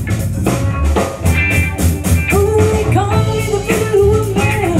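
Live rock band playing: electric guitars, bass guitar and drum kit keeping a steady beat, with a long held melody line coming in about halfway through.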